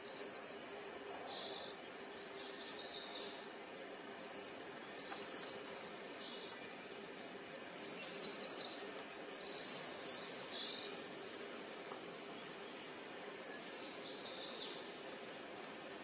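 Blue-winged warbler singing its buzzy two-part song, a high thin buzz followed by a lower, rougher buzz, about five times in a row, over a faint steady hum.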